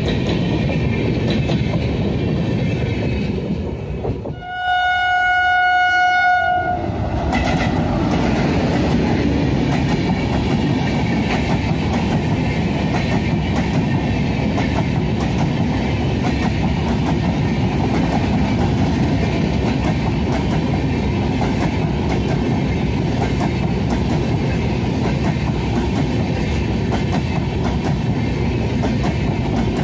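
Express train of passenger coaches rushing past at speed, wheels clattering over the rail joints. A few seconds in, an electric locomotive's horn sounds one long note for about two seconds, then the rush of passing coaches carries on.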